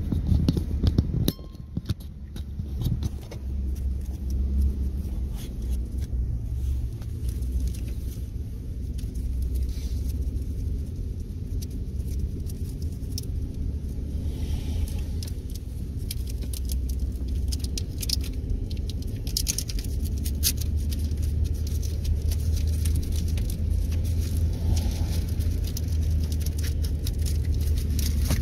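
Car driving slowly, heard from inside the cabin: a steady low rumble of engine and tyres, with scattered light ticks and rattles.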